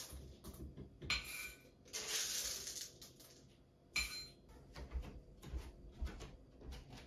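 Coffee beans rattling as they are poured from a glass jar into a metal canister, in two short pours, then a sharp metal clink with a brief ring about four seconds in, followed by light clicks and taps of the canister and coffee mill being handled.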